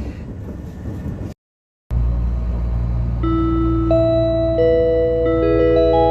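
Train on-board announcement chime: a short melody of sustained, bell-like notes that enter one after another from about three seconds in, over the steady low rumble of the moving train car. Before it, a brief cut to silence.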